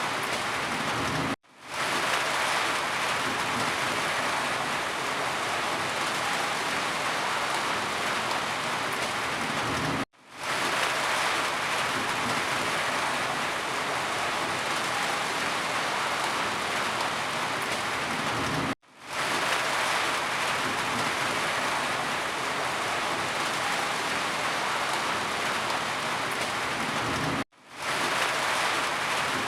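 Steady rain falling, an even hiss. It cuts out abruptly four times, about every nine seconds, and fades back in each time.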